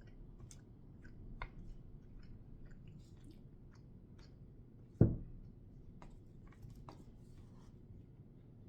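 Close-up chewing with small wet mouth clicks while eating. About five seconds in comes a single loud, low thump.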